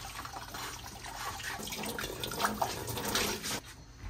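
Kitchen tap water running into the sink while dishes are washed by hand; the water stops a little before the end.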